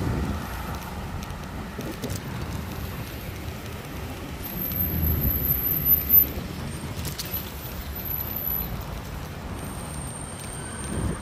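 Road traffic noise heard from a moving bicycle, with low wind rumble on the microphone. A car passes louder about five seconds in, and two faint high whines come and go.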